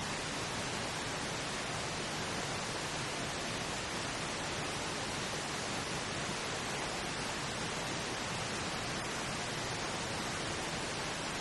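Steady pink noise: an even, unchanging hiss with no rhythm or tones.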